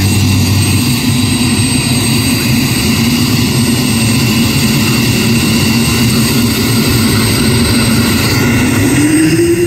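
Black Hawk helicopter's twin turboshaft engines running on the ground with a steady high turbine whine over a low hum, rotors turning slowly during start-up. Near the end a lower tone rises in pitch as the engines spool up.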